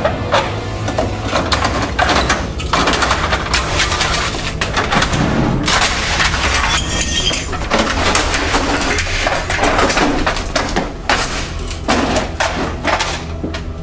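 An office printer-copier being smashed apart: repeated irregular bangs and crashes of its plastic housing hitting the floor and cracking, with loose parts clattering.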